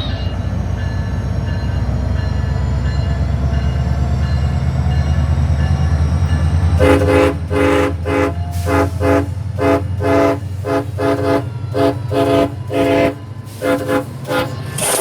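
SunRail commuter train's locomotive horn giving a horn show: after several seconds of the train's steady low rumble, the horn sounds a rapid string of short blasts, about two a second, with a brief pause near the end.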